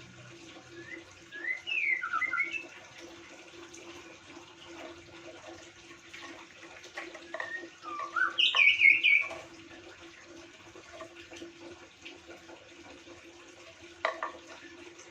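Bird chirping in two quick bursts of short, rising and falling calls, the second burst, a few seconds later, the louder, over a steady low hum. A single click near the end.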